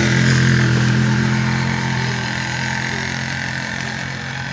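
A small motor vehicle's engine runs steadily at an even pitch, then fades away over the last couple of seconds.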